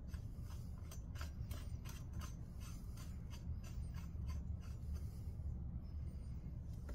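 Light metallic clicks and scrapes, a few a second, as hands work on a bicycle's crank arm and spindle, over a steady low hum.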